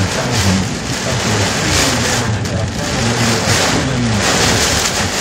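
Heavy wind-driven rain lashing a car's windshield and body in a severe thunderstorm, heard from inside the car: a loud, steady rush that swells and eases.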